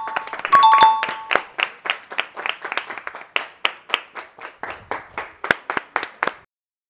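A two-note ding-dong chime, high then low, followed by hands clapping in a steady rhythm, about three claps a second, which stop shortly before the end.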